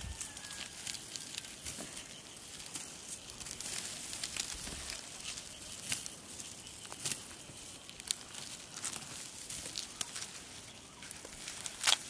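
Dry wheat stalks crackling and rustling, with a few sharp snaps scattered through.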